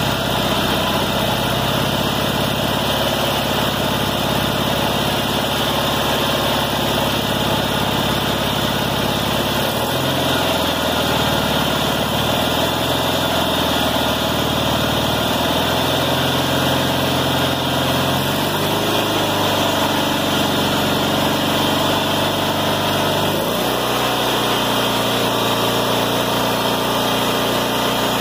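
Kohler Magnum 18 air-cooled opposed-twin engine idling steadily at a very low, cold idle, its note shifting slightly a few times.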